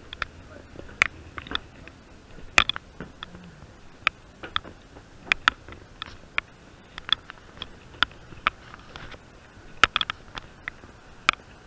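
Footsteps and knocks of someone walking aboard a passenger rail car: sharp clicks and knocks, irregularly spaced about one or two a second, over a low steady hum.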